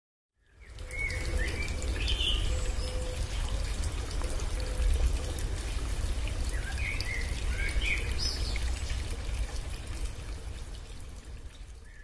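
Waterfall rushing steadily, with birds chirping in two short bouts, about a second in and again around seven to eight seconds in. The sound fades in at the start and fades away near the end.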